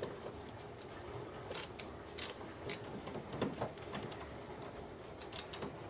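Screwdriver turning a screw out of a microwave's housing: scattered small clicks and scrapes, with a cluster of sharper ticks around the middle and another near the end.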